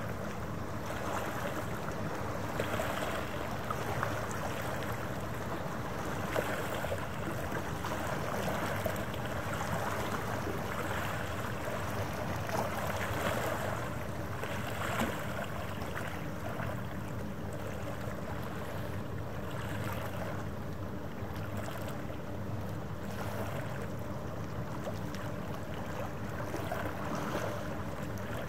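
Harbour waterfront ambience: small waves washing and lapping at the shore in gentle surges, over a steady low mechanical hum.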